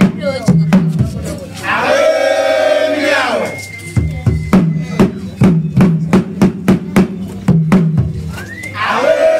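Agbekor drum ensemble playing sharp, fast drum strokes at about three a second. The drumming breaks twice, about two seconds in and again near the end, for a long, loud shouted call from the performers.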